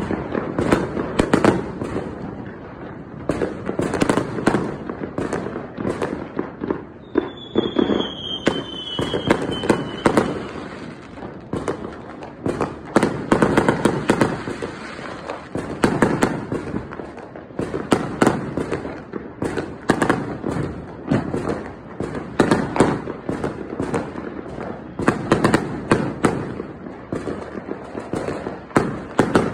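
Fireworks going off in a dense barrage of bangs, pops and crackles, swelling and easing every few seconds. About seven seconds in, a firework whistle sounds high for about three seconds, falling slightly in pitch.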